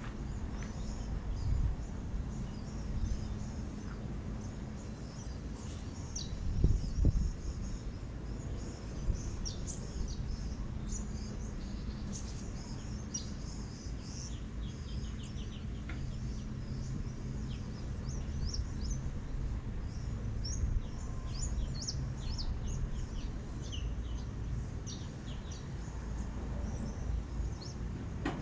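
Small birds chirping, many short high calls, over a steady low rumble, with a dull thump about seven seconds in.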